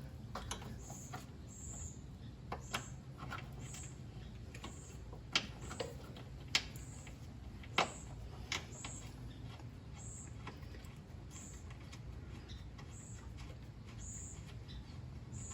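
Scattered light clicks and knocks of hand work on a car's front brake hose and caliper fittings, over a steady low hum. A bird's short high chirp repeats about once a second.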